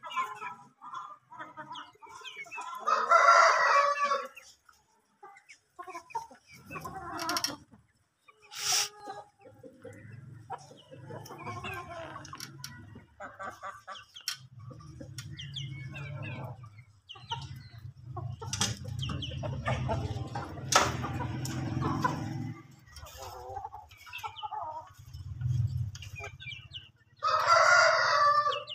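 Game chickens clucking, with a rooster crowing twice: once about three seconds in and again near the end. A low steady hum runs under the middle part.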